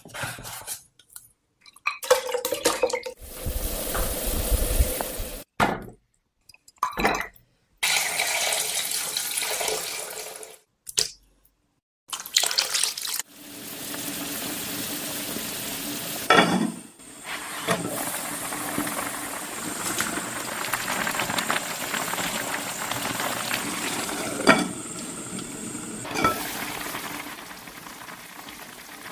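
Short kitchen sounds broken by brief silences: a knife slicing cured pork belly on a wooden board, along with pot and utensil clatter. From about thirteen seconds in, a clay pot boils hard with steady bubbling, and a couple of sharp knocks stand out.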